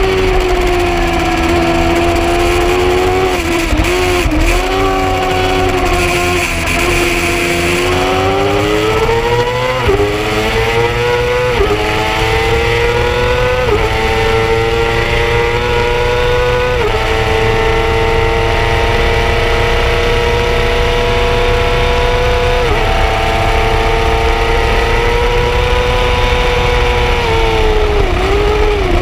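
Yamaha R6 sportbike's inline-four engine under hard riding: its note sags and dips early on as it slows, then climbs through the gears with a sudden drop at each of several upshifts, and dips again near the end on the downshifts. Wind rushes over the microphone.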